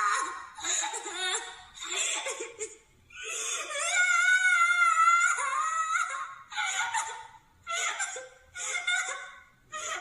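Toro Inoue's crying voice sound effect: a high-pitched cartoon cat voice sobbing in short bursts, with one long wavering wail from about three seconds in, then quick broken sobs near the end.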